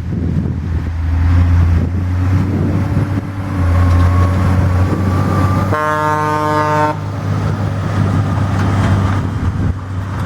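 Heavy farm machinery engine running steadily at harvest, with a single horn blast of about a second near the middle.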